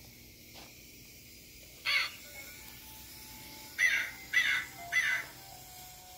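Recorded crow caws played by a Halloween yard display: one caw about two seconds in, then three more in quick succession, about half a second apart. Faint held notes sound underneath.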